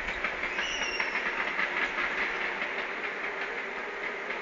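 Fireworks crackling: a dense, steady crackle of many small pops from bursting stars in the sky.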